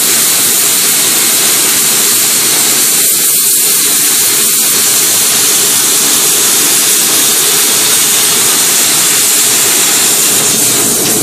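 Plasma cutter cutting through sheet metal: a loud, steady hiss of the arc and compressed air.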